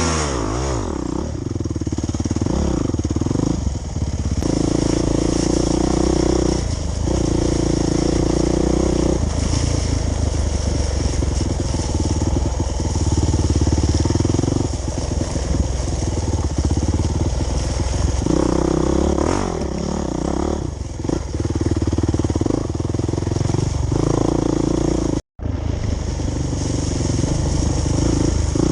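Off-road dirt bike engine running under load on a muddy trail, the revs rising and falling as the rider works the throttle. The sound breaks off for an instant about 25 seconds in.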